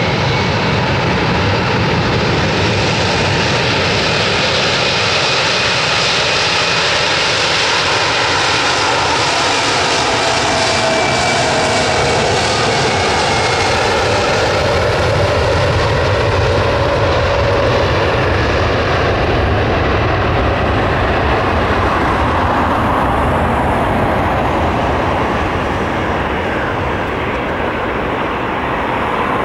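Pratt & Whitney PW4158 turbofans of an Airbus A300F4-600 freighter at takeoff power during the takeoff roll, a loud steady jet roar. A whine in the roar falls in pitch as the aircraft passes by, and the higher part of the sound fades near the end as the aircraft lifts off and moves away.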